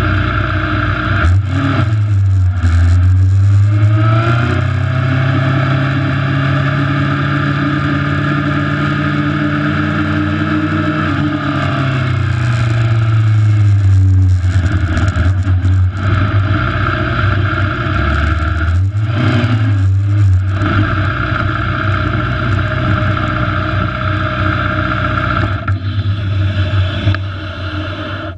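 A vehicle engine runs at low speed. Its pitch rises a couple of seconds in, holds, and falls back around twelve to fourteen seconds in, with a few brief knocks along the way. It drops away at the very end.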